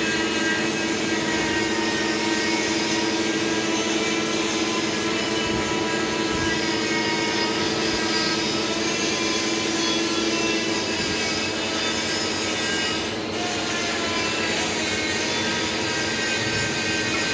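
Steady mechanical drone of running machinery: an even hiss with several steady tones held throughout, dipping briefly about three-quarters of the way through.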